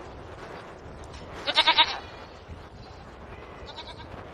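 Valais Blacknose sheep bleating: one loud, quavering bleat about one and a half seconds in, and a fainter one near the end.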